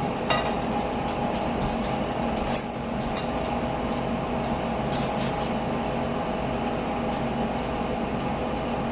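Metal forks clinking and scraping against plates during a meal, a few short sharp clinks scattered through, the loudest about two and a half seconds in. A steady hum runs underneath.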